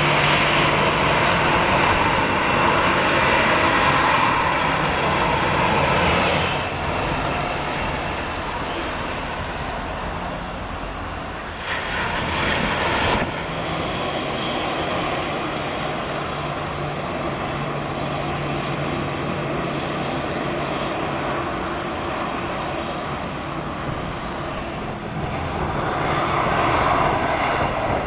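Boeing 737-800's CFM56-7B jet engines running at taxi power as the airliner taxis and turns on the runway: a steady jet rush, louder in the first six seconds and again near the end.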